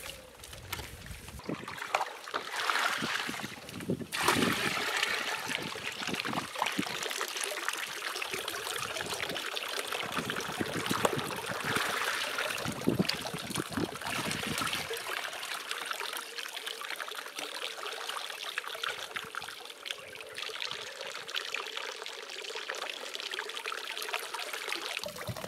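Water trickling and splashing steadily, with a few knocks in the first half.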